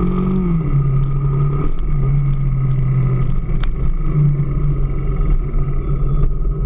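AKT DS200 motorcycle engine running, its note rising and falling several times as the throttle is worked, with a sharp click about halfway through. The engine is making a noise that the owner takes to be abnormal.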